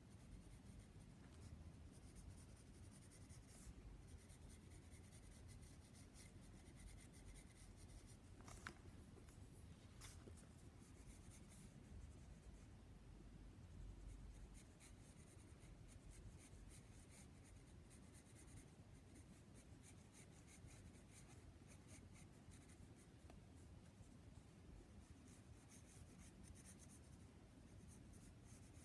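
Faber-Castell graphite pencil sketching on paper: faint, soft scratching of short strokes going on and off, with a couple of sharper ticks about a third of the way in.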